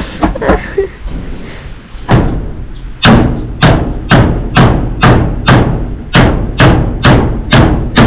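Hammer blows on a wooden rack frame: one strike about two seconds in, then a steady run of blows about two a second.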